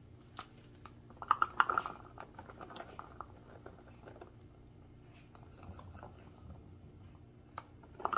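Fresh blueberries poured from a plastic clamshell container into a measuring cup and onto thick batter: soft patter and light clicks, with a louder rustle of the plastic container about a second in.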